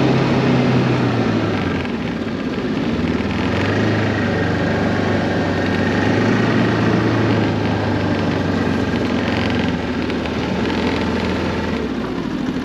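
Ski-Doo Tundra 600 ACE LT snowmobile's three-cylinder four-stroke engine running steadily at low speed while under way. Its note steps a little lower a couple of times early on and drops away near the end as the sled slows.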